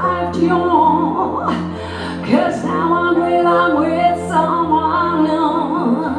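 A woman singing a slow song live, her voice sliding and bending between notes over sustained accompaniment chords.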